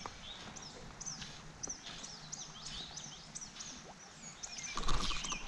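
Small birds chirping and calling in short, quick, high notes, over a faint outdoor background. Near the end a louder burst of noise starts.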